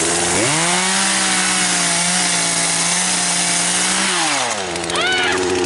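Poulan two-stroke chainsaw revved up from idle a fraction of a second in, held at high speed for about four seconds, then dropping back to idle.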